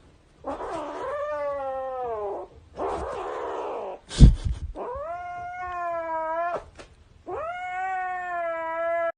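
A cat yowling: three long drawn-out calls, the first sliding down in pitch at its end. A breathy hiss comes between the first two, and a sharp thump about four seconds in is the loudest sound.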